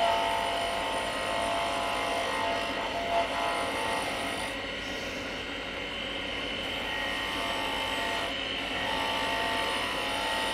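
Wood lathe running steadily while a bowl gouge slices a spinning spindle, the hiss and scrape of the cut over the motor's hum.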